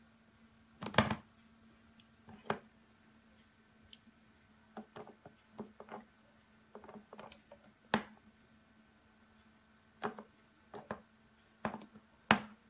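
Irregular light taps and clicks of a cat's paw batting at the hard plastic nozzle of a humidifier, the sharpest about a second in and near the end.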